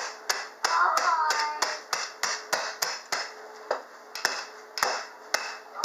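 Wooden rolling pin smashing pretzel sticks in a plastic zip-top bag on a countertop: sharp, crunching knocks about twice a second, crushing the pretzels into pieces.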